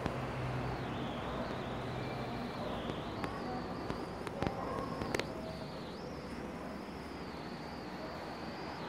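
Steady background hiss of ambient room noise, with a few light clicks and knocks about four to five seconds in.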